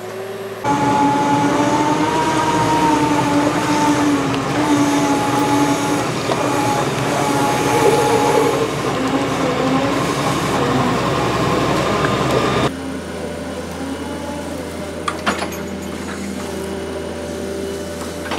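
Wheeled excavator's diesel engine and drive running with a wavering whine over a rumble as it wades through a shallow stream. About twelve seconds in it drops to a quieter, steadier hum as the machine travels along a dirt track, with a couple of sharp clicks near the end.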